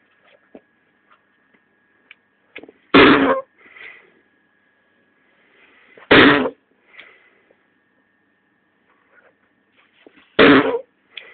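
Self-inflating whoopee cushion squeezed three times, each squeeze letting out a short fart noise of about half a second, some three to four seconds apart.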